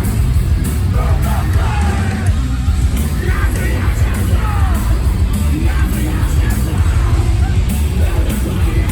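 Metalcore band playing live at full volume, bass-heavy, with yelled vocals over the music.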